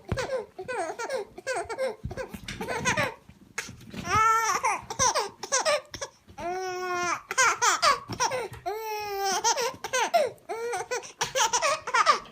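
A baby laughing in repeated high-pitched bursts, with a few longer drawn-out squeals around the middle.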